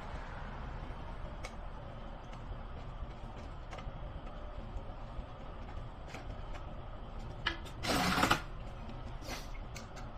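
Light mechanical clicks and taps of hands working on a machine, over a low steady hum, with one short loud rush of noise about 8 seconds in.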